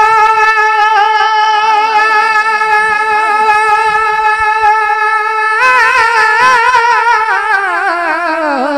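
A solo naat singer holds one long high note on a single vowel without accompaniment, then about six seconds in breaks into a wavering melisma that slides down in pitch.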